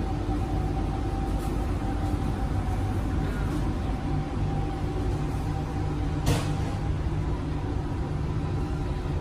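Steady hum and rumble inside a Dubai Metro train carriage, with a few steady tones, and a brief hiss about six seconds in.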